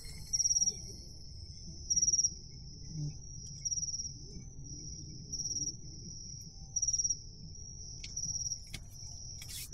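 Night insects chirping: one sings short pulsed high trills about every second and a half over a steady high-pitched insect chorus. A few faint clicks near the end.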